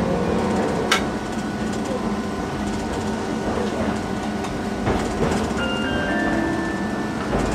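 Inside a moving streetcar: the steady rumble and rattle of the car and its wheels on the rails. There is a sharp click about a second in, and a few short high tones near the end.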